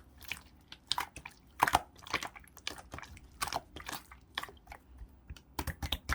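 Clear slime mixed in red and orange being squeezed and pressed by hand, making irregular sticky clicks and pops, a few a second.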